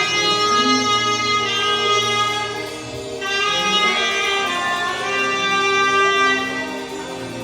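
Saxophone playing slow worship music in long held notes, moving to a new note about three seconds in, over a sustained band accompaniment.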